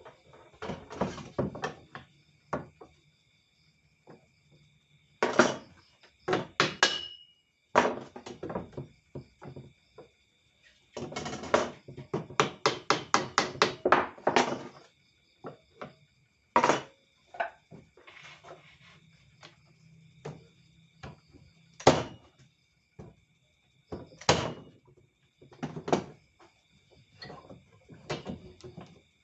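Irregular knocks and thuds of wooden parts, with a quick run of about a dozen strikes, roughly four a second, in the middle. A faint steady high whine sits underneath.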